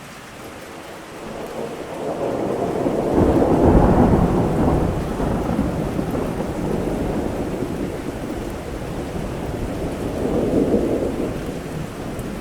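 Steady rain with a long roll of thunder that builds about a second and a half in, peaks around four seconds and rumbles on, swelling again near the end.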